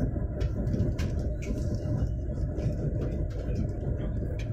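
Steady low rumble inside the passenger cabin of a Chinese high-speed train running at speed: wheel, track and air noise carried through the car body.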